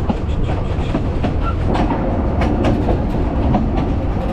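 Narrow-gauge railway carriage running along the track, a steady low rumble with irregular clicks and rattles from the wheels and couplings.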